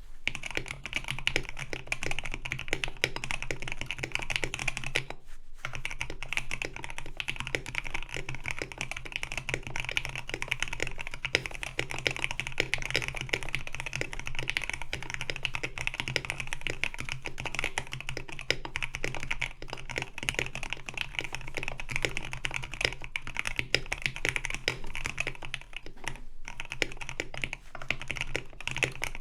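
KBD67 Lite gasket-mount mechanical keyboard with Krytox 205g0-lubed Durock L7 switches, a polycarbonate plate and PBT keycaps being typed on steadily and quickly. The typing pauses briefly about five seconds in and again near the end.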